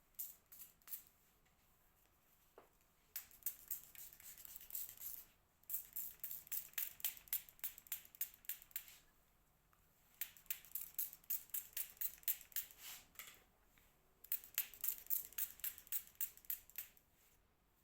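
Small hand-pumped spray bottle of water and conditioner misting curly hair: quick runs of short hissing sprays, about four a second, broken by short pauses between runs.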